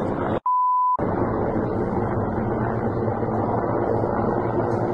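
A short 1 kHz censor bleep near the start, then the steady, loud drone of an Mi-24 helicopter's rotors and twin turboshaft engines.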